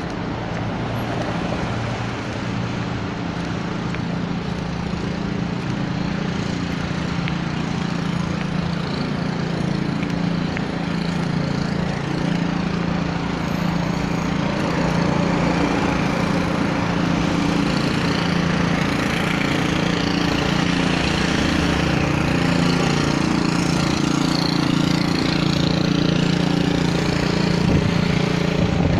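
A machine's steady drone at one unchanging pitch, growing gradually louder, over a general city hum.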